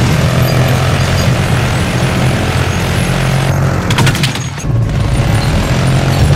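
Film battle sound: helicopter rotors running under dense machine-gun fire, with a quick run of sharp shots about four seconds in.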